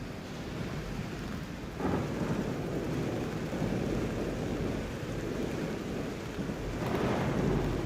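Thunder rumbling over steady rain, with one rolling peal starting sharply about two seconds in and a second swell near the end.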